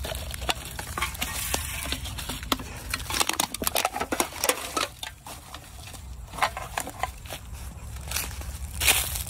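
Footsteps crunching over dry leaves, twigs and paper and plastic litter, with crinkling and clicks as an aluminum can is picked up and handled in a rubber glove. Many quick crackles come close together in the middle, with a louder crunch near the end.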